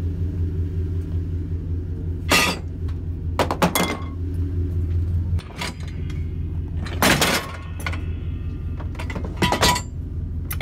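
Steel floor jack parts clanking and scraping as they are handled and set down in a pickup bed: a series of sharp metal clatters, a few with a short ringing tail, over a steady low mechanical hum.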